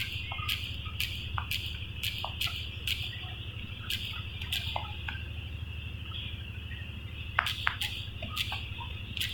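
Steady low electrical hum and high hiss, with irregular sharp clicks and taps scattered throughout, a cluster of them about seven and a half seconds in.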